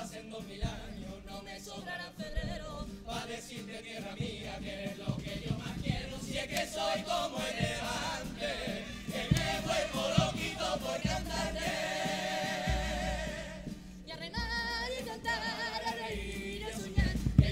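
Youth carnival comparsa choir singing together in chorus with guitar accompaniment.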